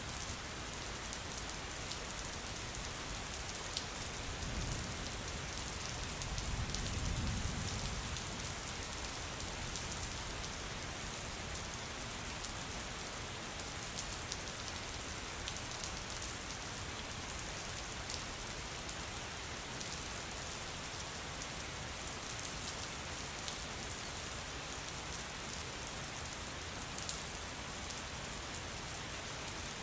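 Steady rain, with individual drops ticking close by. A low rumble swells and fades about five to eight seconds in.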